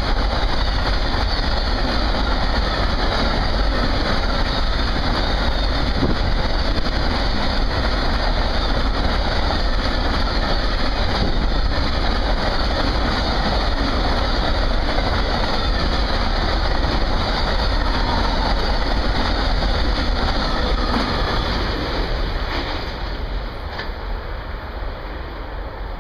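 Amtrak Auto Train autorack cars rolling past close by: a steady noise of steel wheels running on the rails. The noise drops off about 22 seconds in as the last cars go by.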